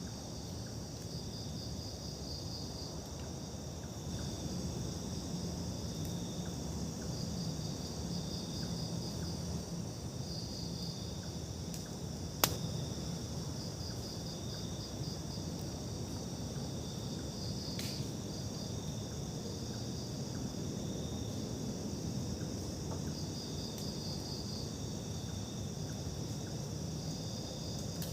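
Crickets and other insects chirping in steady, pulsing high trills, with a low rumble underneath and one sharp click about halfway through.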